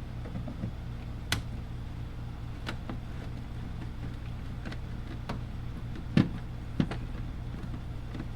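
Scattered light clicks and a couple of duller knocks, the loudest about six seconds in, from a socket wrench and small metal parts as the 8 mm nuts holding a tail light housing are worked off. A steady low hum runs underneath.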